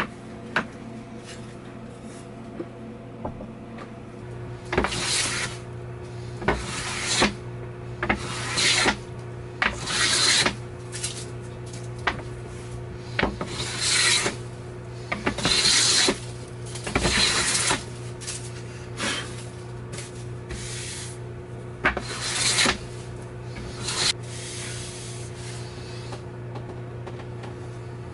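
Hand plane shaving along the edge of a wooden board, likely cedar, in a series of swishing strokes about a second long with short pauses between them, starting about five seconds in.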